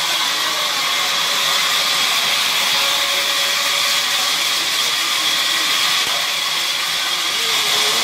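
Sawmill machinery running steadily: a loud even hiss with a high steady whine in it.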